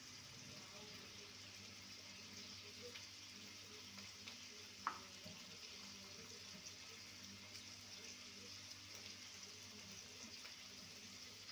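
Near silence: faint steady hiss and low hum of room tone, with one short click about five seconds in.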